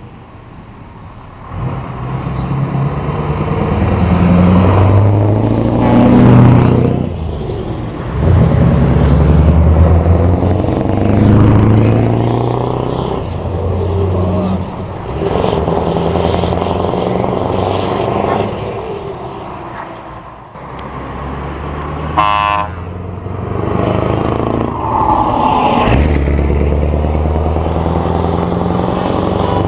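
Scania V8 diesel trucks pulling away and driving past one after another, engines working up through the gears with breaks in the drone at each shift. A brief horn toot sounds about two-thirds of the way through.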